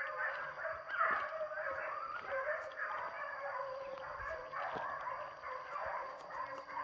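A pack of hunting hounds baying continuously in overlapping voices, giving tongue as they run a paca. A steady high tone runs behind them.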